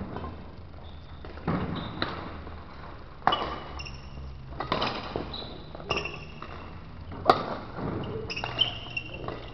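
Badminton rally: about seven sharp racquet strikes on the shuttlecock at uneven gaps of roughly a second, with short high squeaks of court shoes on the floor between them.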